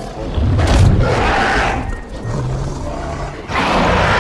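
Dinosaur roar sound effect, heard twice: a long roar about half a second in and another near the end.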